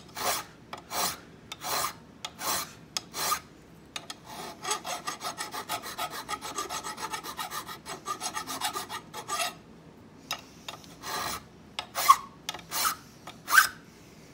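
Flat hand file rasping across a bit key blank clamped in a vise. It starts with slow, even strokes, then a run of quick short strokes in the middle, then slower strokes again; a couple near the end give a brief squeal.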